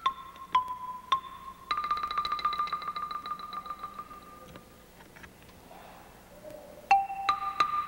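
Solo marimba: single struck notes ringing out, then a fast tremolo roll on one note that fades away, a brief soft lull, and more struck notes near the end.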